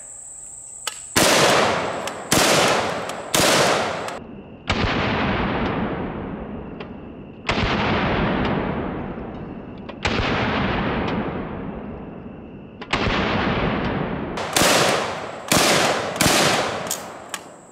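A Street Sweeper 12-gauge revolving-drum shotgun fires a string of about a dozen shots. Three come about a second apart, then three slower blasts with long fading tails, then a quick run of shots near the end.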